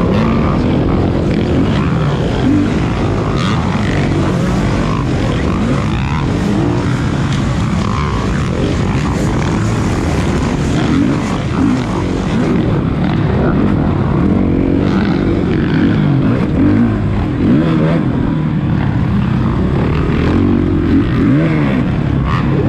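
Several motocross dirt bikes racing on the track, their engines revving up and down and overlapping.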